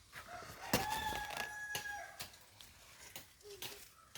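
Rooster crowing once, a long held call that starts about a second in, with scattered sharp clicks around it.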